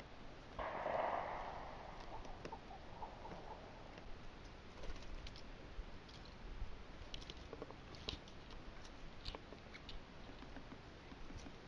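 Faint, irregular clicks and taps, with a short rush of noise about half a second in that fades over the next few seconds.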